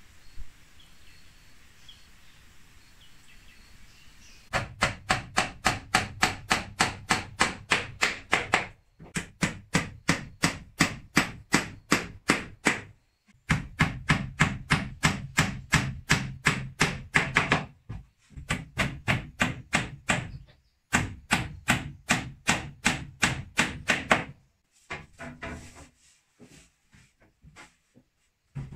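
Rapid chopping strokes of a blade, about four a second, in runs of several seconds with short pauses between, giving way to a few fainter knocks near the end.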